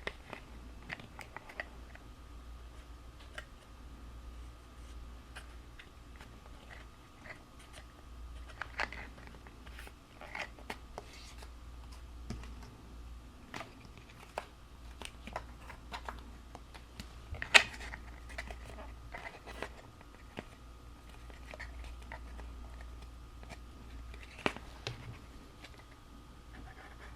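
Cardstock pieces being handled, pressed and folded while flaps are glued down: scattered quiet taps, rustles and crinkles, with a sharper click about 17 seconds in and another near the end.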